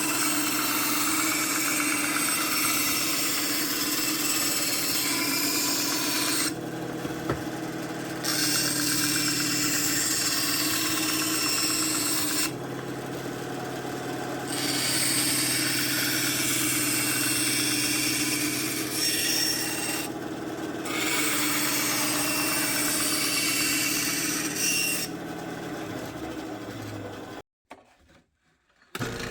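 A power tool cutting and finishing the edges of a thick Kydex holster shell: long grinding, rasping passes broken by several short pauses in which only the tool's motor hum is left. The sound drops out briefly near the end.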